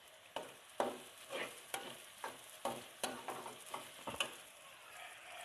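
Slotted metal spatula scraping and knocking against a metal pan, stirring sautéed onions and dried pomegranate seeds, in quick repeated strokes about two to three a second over a faint sizzle of frying.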